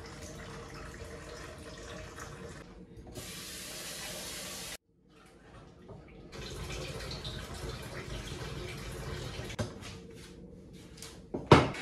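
Water poured off from a saucepan into a stainless-steel sink, splashing steadily, with a louder rush of water for about a second and a half. After a break in the sound come a few light knocks and a sharp clunk of the pot near the end.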